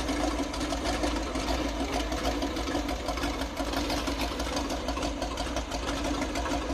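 Tatra 603-1's air-cooled 2.5-litre OHV V8 petrol engine running steadily at an even speed.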